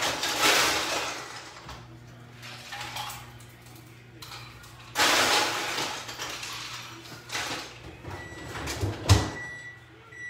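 Kitchen handling noise: two long bursts of rustling, scraping noise about five seconds apart, then a couple of sharp knocks near the end, over a low steady hum.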